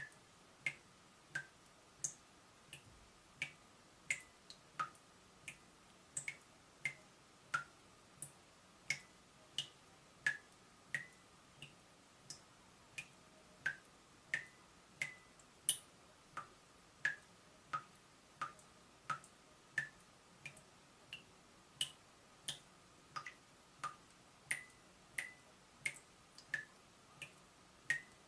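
Water dripping from a leaking tap: single drops fall about every two-thirds of a second, each a short plink whose pitch changes from drop to drop.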